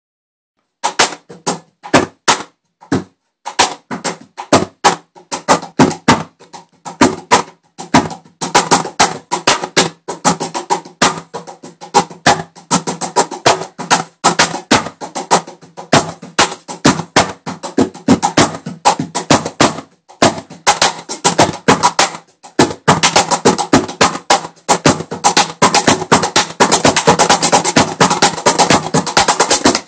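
Homemade wooden cajon played with bare hands striking its front panel in a groove of hits. The strikes are sparse at first, get busier after about eight seconds, break off briefly past the middle, then turn into a fast, dense flurry for the last third.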